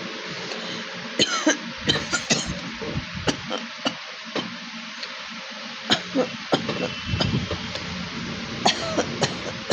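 A person coughing again and again, short coughs coming in quick runs of two or three with pauses between: a real cough from a bad cold.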